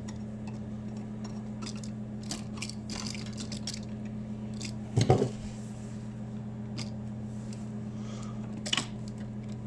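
Faint clicks and rustles of copper wires and wire nuts being handled and twisted in an electrical box, over a steady low hum, with one brief louder sound about five seconds in.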